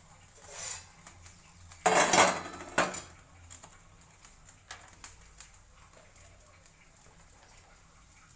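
Metal kitchenware clattering: a loud clatter about two seconds in and a shorter clink just after, with a softer scrape before them and a few light ticks later.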